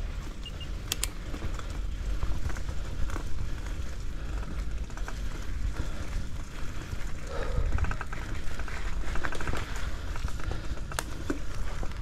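Mountain bike being ridden along a rough trail: a steady low rumble with scattered clicks and rattles from the bike, a sharp click about a second in and another near the end.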